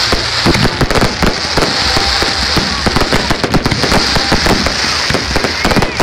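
Fireworks display: a dense, rapid run of overlapping bangs and crackles from bursting aerial shells over a steady hiss.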